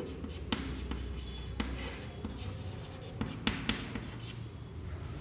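Chalk writing on a chalkboard: light, irregular taps and scratches as the chalk forms letters.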